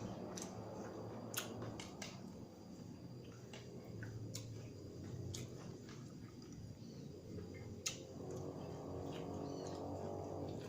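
Close-up chewing with scattered sharp crunchy clicks.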